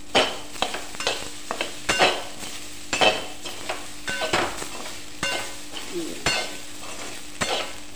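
A steel spatula scrapes and stirs soya chunks and sprouted moong around an aluminium kadhai, in irregular strokes about once or twice a second. A light frying sizzle runs underneath as they dry-roast in a little oil.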